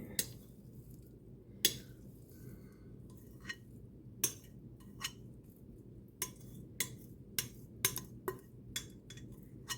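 A utensil clinking and tapping against a dish while casserole mixture is scraped and spread into it: about a dozen sharp, irregular clinks over a faint steady hum.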